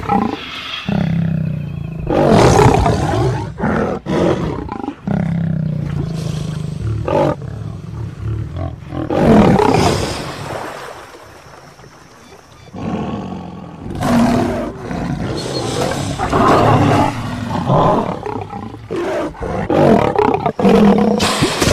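Male lion roaring and growling in repeated loud bouts of a few seconds each, with a short lull a little past halfway: a threat display at a crocodile.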